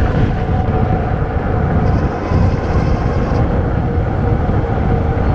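Wind rushing over the microphone and tyre and road noise from a Super 73 RX electric bike riding at speed, with a faint steady whine under it.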